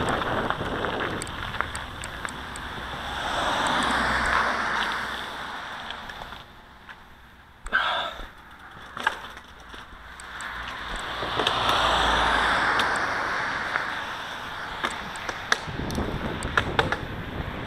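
Wind rushing over the camera microphone and tyres rolling as a mountain bike rides down a gravel track onto tarmac, the wind noise swelling twice with speed. A sharp knock about eight seconds in and scattered small clicks come through it.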